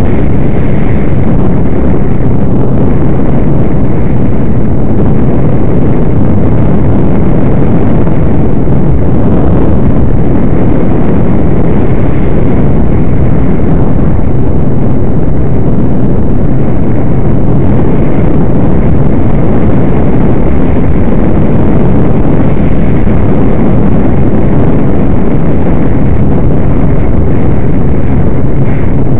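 ATV engine running steadily under way on a gravel trail, loud and constant in level, with rushing wind and ride noise on the mounted camera's microphone.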